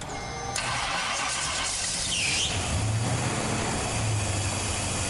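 The Chevy Nova's fuel-injected engine cranking and firing up on its newly primed fuel system, then settling into a steady idle. A brief squeal comes about two seconds in as it catches.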